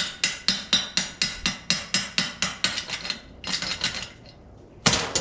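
Hammer tapping steel at a steady pace of about three to four strikes a second, typical of chipping slag off a fresh weld. About three seconds in the tapping stops and there is a short rough scraping. Near the end comes one louder strike, followed by a quick run of fading knocks.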